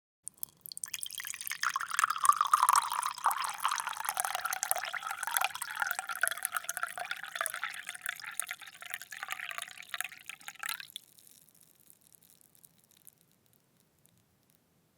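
Water poured in a steady stream into a glass, with a tone in the splashing that slowly drops in pitch. The stream cuts off about eleven seconds in, leaving faint trickles and drips.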